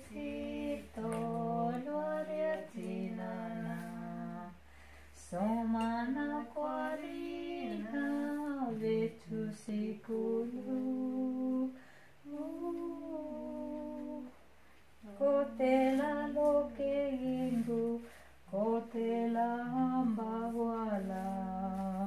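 Two women singing a children's song unaccompanied, in sustained phrases separated by short pauses.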